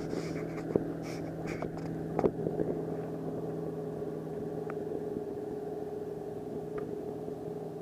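A boat motor running with a steady, even hum, with a few short knocks and clatters about one and two seconds in.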